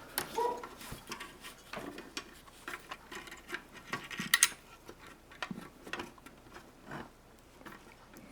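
Light, irregular clicks, taps and small knocks of parts being handled inside an opened flat-screen TV as a circuit board is fitted, with one sharper click about four seconds in.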